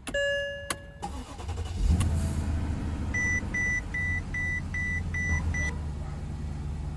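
A car's engine starts about two seconds in and settles into a steady idle. A short ringing chime comes before it, and a run of seven quick, evenly spaced high electronic beeps sounds over the idle.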